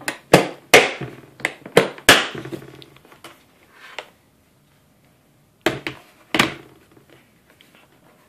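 Pelican 1450 hard plastic case being shut: a quick run of sharp clicks and knocks over the first two seconds as the lid is pressed down and its latches are snapped closed. Two more knocks come about six seconds in.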